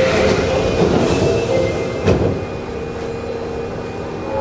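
Osaka Subway Midosuji Line 21 series train running, heard from inside the car: a steady rumble of wheels on rail with a held tone from the running gear. There is a single knock about two seconds in.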